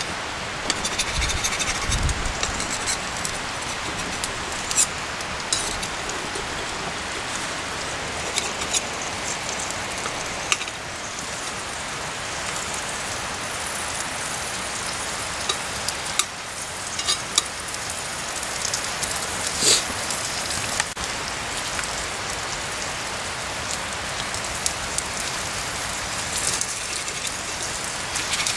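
Eggs and sausages sizzling in a No. 3 Griswold cast iron skillet over a small wood-fired stick stove: a steady hiss with a few sharp clicks now and then.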